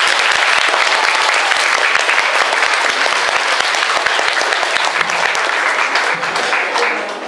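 Audience applauding: dense clapping from many people that fades out near the end.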